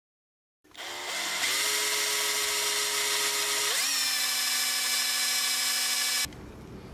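Power drill with a center-drill countersink bit drilling out the rivet on a diecast toy car's base. The motor starts under a second in, winds up to a steady whine, steps up in pitch about halfway, and stops abruptly near the end.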